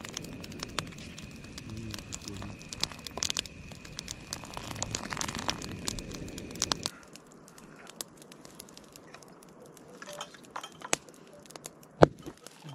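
Wood campfire crackling and popping. About twelve seconds in comes a single sharp, loud crack: a hearth stone bursting in the heat of the fire.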